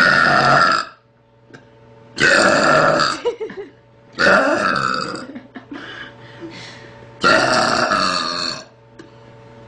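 A little girl burping: four loud, drawn-out belches, each about a second long, a second or two apart.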